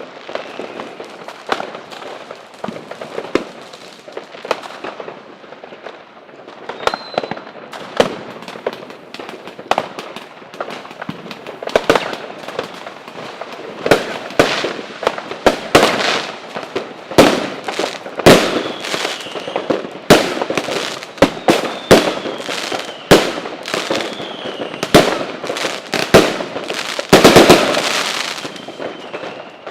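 Fireworks going off: sharp bangs over continuous crackle, sparse at first and growing denser from about halfway, with a rapid flurry of bangs near the end and a few faint falling whistles.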